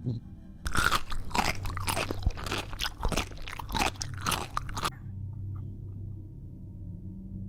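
Crunchy chips being bitten and chewed, a dense run of crunches lasting about four seconds and then stopping, over a low steady hum.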